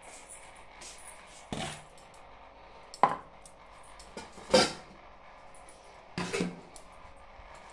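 Kitchen dishes and utensils being handled: four separate clatters about a second and a half apart, the middle two sharp clinks with a short ring. Under them runs a faint steady hum from an aquarium pump motor.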